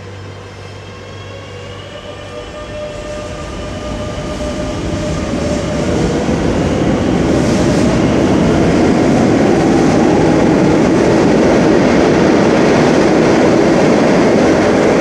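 Madrid Metro train pulling out of the station: its traction motors whine, the whine rising in pitch over the first few seconds as the running noise swells. It then settles into a steady loud rush and rumble as the cars pass close by.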